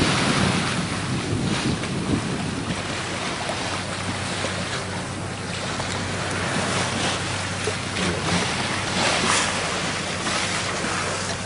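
Wind buffeting the microphone and water rushing along the hull of a sailing ketch under way, in gusty swells, with a steady low hum underneath.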